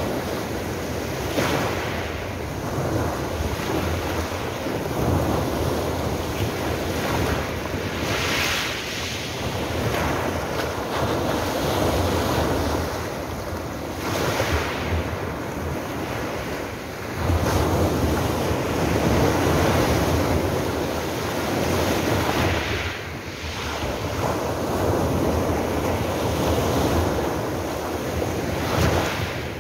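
Small sea waves breaking and washing up a pebble beach, the surf swelling in a hissing surge every five or six seconds, over a steady low rumble of wind on the phone's microphone.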